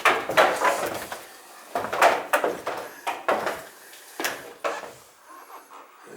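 Irregular knocks and clunks, like doors or panels being handled, several in quick succession, thinning out after about four seconds, with a faint high whine near the end.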